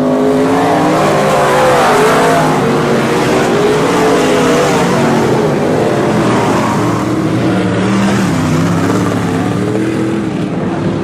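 Several IMCA Modified dirt-track race cars' V8 engines running hard at racing speed, their pitches rising and falling as they pass, loudest about two seconds in.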